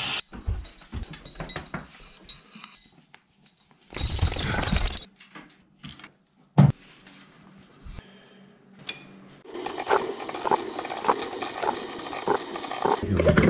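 Household handling sounds in quick succession: scattered clicks and clatter, a rush of noise lasting about a second some four seconds in, a single sharp knock a little after six seconds, and a denser run of clatter over the last four seconds.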